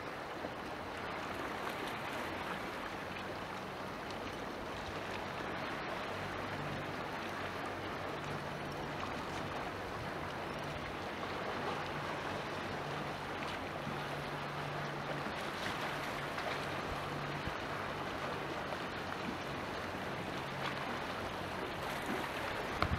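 Steady wash of wind and sea water. A motorboat engine hums faintly underneath from about a quarter of the way in until near the end.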